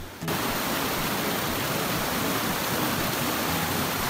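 Steady, even rush of creek water running over boulders in small rapids. It comes in suddenly just after the start, as music cuts out.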